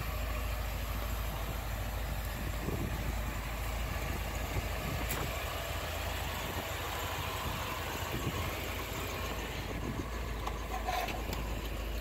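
Alfa Romeo Spider Veloce's four-cylinder engine idling steadily, heard as a low, even rumble.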